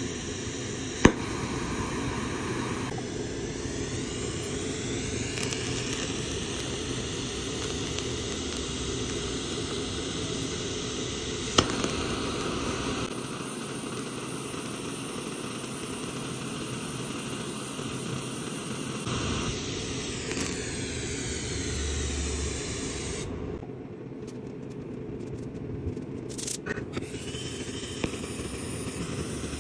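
Glassblowing torch flame hissing steadily as it burns a banana, its sound changing abruptly every few seconds. Two sharp clicks stand out, about a second in and about twelve seconds in.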